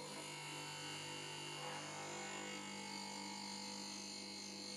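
Darex XT3000 drill sharpener's grinding motor running with a steady hum.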